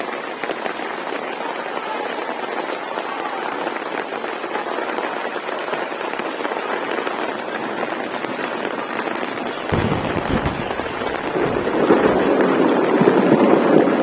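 Steady rain falling, an even patter and hiss. About ten seconds in, a low rumble joins it, and the sound grows louder near the end.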